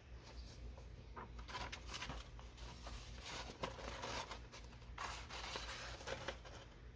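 Paper pages of a model kit's instruction booklet rustling as they are turned, a handful of soft, scattered rustles over a faint low hum.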